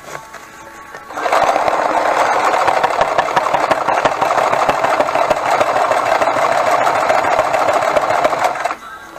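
Frister & Rossmann 502 heavy-duty sewing machine running at speed, stitching a zigzag seam through thick nylon webbing. It starts about a second in, runs steadily with a rapid needle rhythm, and stops shortly before the end.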